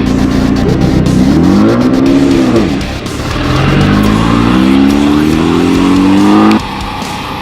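Off-road race buggy engine at full throttle. Its pitch holds, swings up and down once, then climbs steadily for about three seconds and cuts off suddenly near the end.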